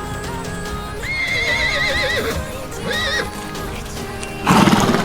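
A horse whinnying: a long, high, quavering call, then a shorter one about two seconds later, over background music. A loud short burst of noise follows near the end.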